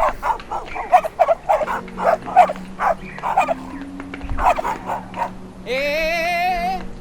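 Dogs barking and yelping in rapid, overlapping calls, then one long, wavering whine that rises near the end.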